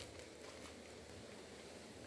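Faint, steady background noise with no distinct event.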